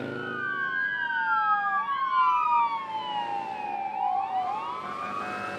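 Several police sirens wailing at once, their slow rising and falling tones crossing each other, as a line of law-enforcement vehicles passes.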